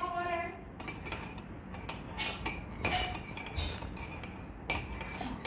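A few light, scattered clicks and clinks of tableware being handled on a table.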